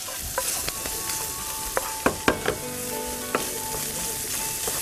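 Spiced taco meat sizzling in a frying pan, stirred with a wooden spoon that knocks and scrapes against the pan several times.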